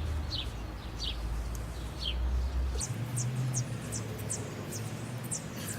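A bird chirping: short, high, falling chirps, a few spaced out at first and then about two or three a second, over a low steady hum that changes pitch about halfway through.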